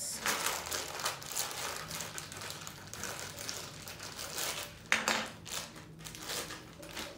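Clear plastic wrapper crinkling and rustling as a small toy is unwrapped by hand, with a louder crackle about five seconds in.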